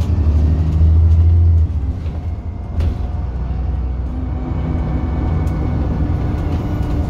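Alexander Dennis Enviro 400 double-decker bus engine running with a deep rumble. The rumble drops sharply in level under two seconds in, as the engine eases off, then runs on steadier and quieter, with a few light clicks and rattles.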